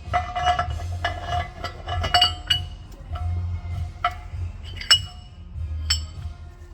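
Steel transfer-case parts clinking and ringing as they are handled and set down, many sharp clinks over a few seconds, with background music underneath.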